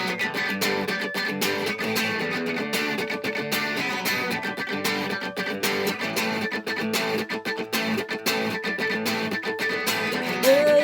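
Instrumental break of a song led by guitar, with quick, even strokes over sustained chords and no singing until the voice comes back at the very end.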